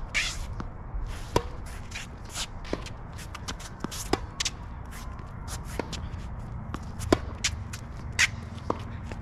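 Tennis rally: sharp pops of racquets hitting the ball and the ball bouncing, with players' shoes scuffing and shuffling on the court between shots.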